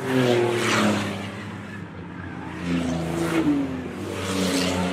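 Short-track race cars going past one after another at full throttle, each engine note swelling and falling in pitch as it passes.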